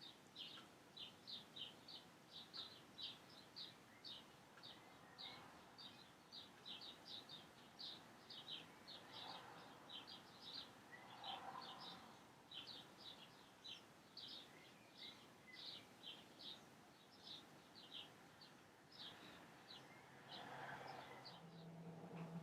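Faint bird chirping: a steady run of short, high chirps, a few each second, over quiet room noise, with a few soft swells of noise.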